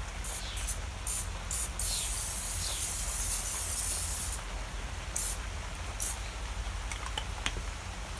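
Aerosol can of cooking spray hissing: several short spurts, then one long spray of about two and a half seconds, then two more short spurts.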